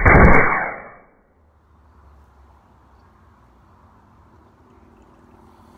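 Water bottle rocket launching off its bike-pump nozzle: a loud rush of compressed air and water blasting out of the bottle as the pressure pops it off the cap, fading away within about a second.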